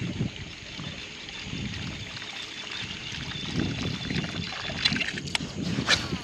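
Water sloshing and trickling, swelling and fading, with a few sharp clicks near the end.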